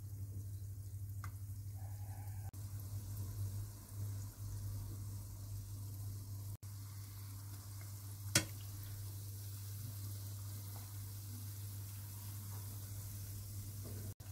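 Orange dough fritters (huesillos) frying in hot sunflower oil in a small saucepan, a steady sizzle over a low hum. A single sharp tap comes about eight seconds in, as a spoon and fork turn the fritters in the pan.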